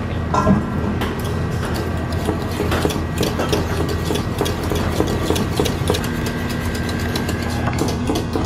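Wire whisk clicking and scraping rapidly against a stainless steel saucepan while butter is whisked into thick pastry cream, over a steady low hum.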